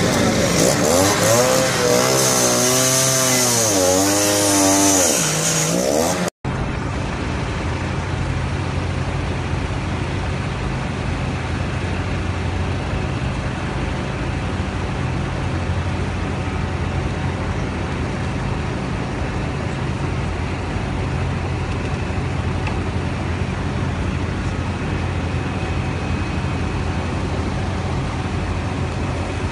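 An engine revving, its pitch dipping and rising several times, then a sudden break into the steady low drone of heavy diesel machinery running evenly.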